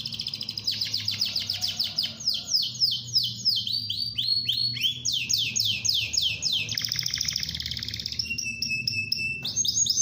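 Domestic canary singing without a break: fast trills, each a run of quickly repeated down-sweeping notes, switching to a new note type every second or two, with a held whistled note near the end.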